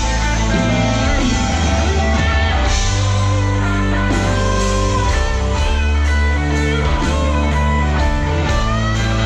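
Live rock band playing: electric guitar over held bass notes, with drums keeping a steady beat.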